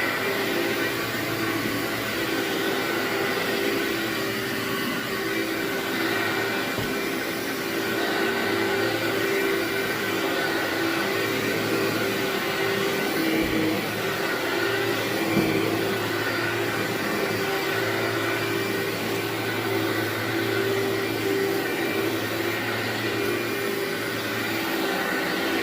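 Vacuum cleaner running steadily over carpet, its motor holding an even hum.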